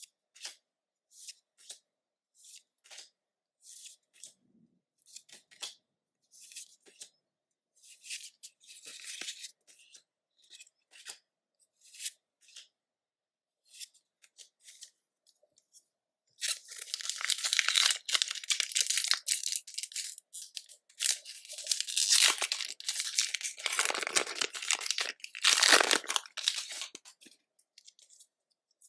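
Pokémon card packaging being handled: scattered light clicks and rustles, then about halfway through a loud, long stretch of tearing and crinkling, like a foil booster pack wrapper being ripped open and crumpled.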